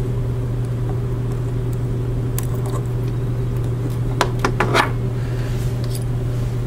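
A few small metal clicks and snips as orthodontic ligature cutters cut steel ligature wire on a dental model: faint ones about two and a half seconds in, then a quick run of sharper clicks near the five-second mark. A steady low hum runs under them.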